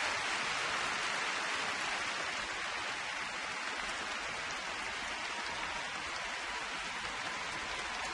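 Arena crowd applauding steadily, a dense even patter of many hands clapping that eases off slightly.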